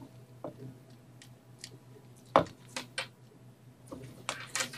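Handling noise from a mini USB vacuum cleaner being readied: a string of sharp plastic clicks and taps, the loudest about two and a half seconds in and several more close together near the end, over a faint low hum.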